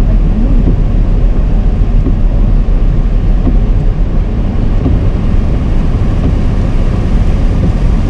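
Steady road and engine noise inside a moving car's cabin, heaviest at the low end.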